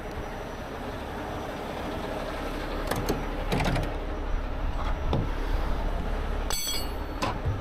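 Heavy rotator tow truck's diesel engine idling steadily, with a few light knocks and then two sharp metallic clinks near the end as steel shackles are pulled from a side toolbox compartment.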